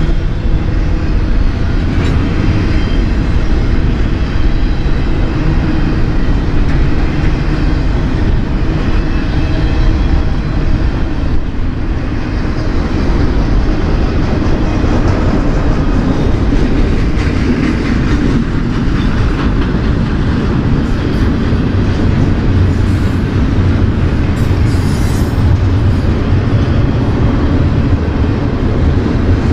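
A double-stack intermodal freight train's container-laden well cars rolling past close by: a loud, steady rumble of steel wheels on the rails.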